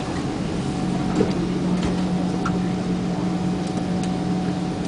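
SMRT C151 train pulling away from the platform: a steady low hum from the traction equipment sets in about a second in, over the rumble of the carriage, with a few faint clicks and knocks.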